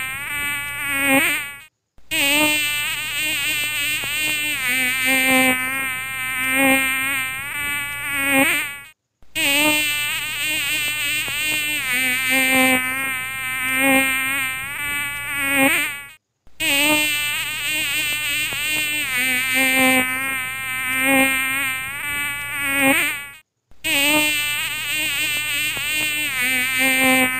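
Mosquito buzzing, a whine that wavers up and down in pitch. It breaks off for a moment about every seven seconds as the same buzzing loop repeats.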